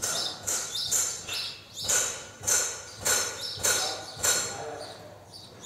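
Steps in an indoor arena's sand footing as a saddled horse and its handler walk, about two steps a second, each a short scuffing crunch.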